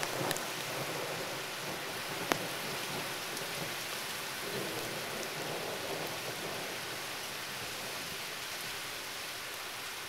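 Heavy rain falling steadily, with a low rumble of distant thunder a few seconds in and a couple of sharp taps of drops.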